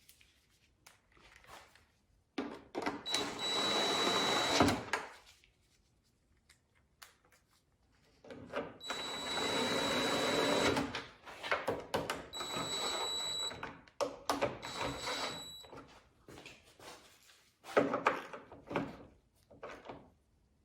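Cordless power driver running down the four 10 mm nuts that hold the taillight assembly to the hatch studs: four separate bursts of the tool's motor with a steady high whine, the first two longer than the last two, followed by a few short clicks.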